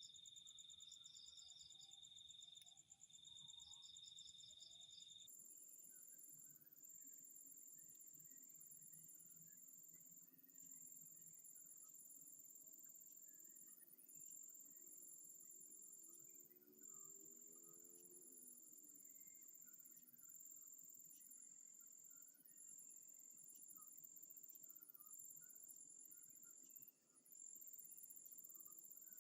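Faint chorus of crickets: steady high-pitched trilling with rhythmic pulsed chirps layered over it. About five seconds in the chorus changes abruptly to a higher pitch, as at a cut between recordings.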